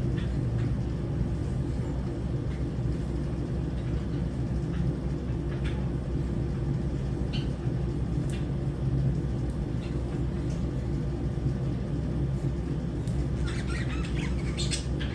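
Lovebirds giving scattered short, high chirps over a steady low rumble, with a quick run of chirps near the end.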